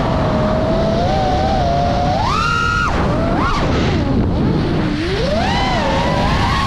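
FPV quadcopter's motors whining, the pitch rising and falling with the throttle: a sharp jump up about two seconds in, dropping away half a second later, a low dip a little past the middle, then climbing again. Steady wind rush on the onboard camera's microphone underneath.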